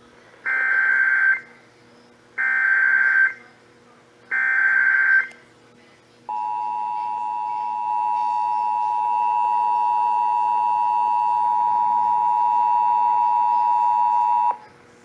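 Emergency Alert System activation tones: three bursts of SAME header data, each about a second long and about two seconds apart, then the EAS two-tone attention signal, a steady dual-tone alarm held for about eight seconds before cutting off.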